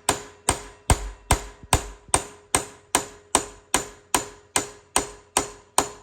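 A mallet striking a steel punch in a steady series of about fifteen metallic taps, roughly two and a half a second, each ringing briefly. The punch is driving a Shelix helical cutterhead into its bearing seat.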